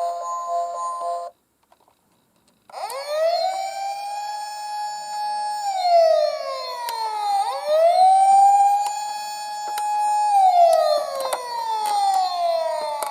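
A short chime-like tone, then after a brief silence an emergency-vehicle siren wailing: it rises quickly, holds a steady pitch, then falls slowly, twice over.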